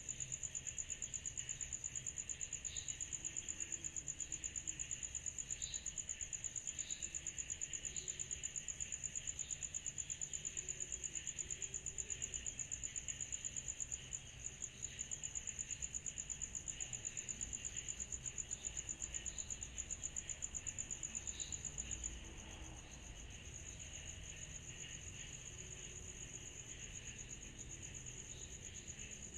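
Summer night insect chorus: a steady, high trill in fast, even pulses over a softer continuous hum of more insects, with a few faint short chirps. About three quarters of the way through, the loudest trill drops a little and goes smoother.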